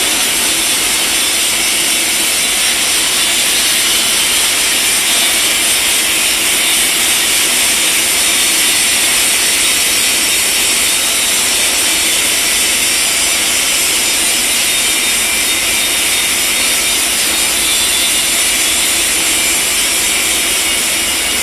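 A loud, steady hiss, strongest in the high range, with no breaks or changes in level.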